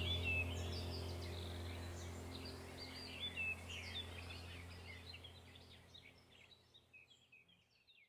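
Birdsong, many short chirps and whistles, over a low, steady musical drone; the whole mix fades out gradually and is almost gone by the end.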